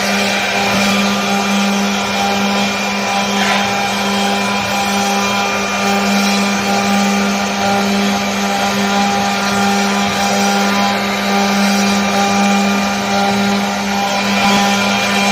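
CNC router spindle running steadily while carving wood, a constant pitched whine over steady cutting noise.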